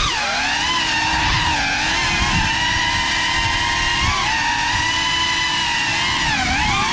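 GEPRC Cinelog35 6S cinewhoop drone's motors and ducted propellers whining in fast flight, the pitch rising and falling with the throttle. The pitch drops sharply and climbs back about six and a half seconds in.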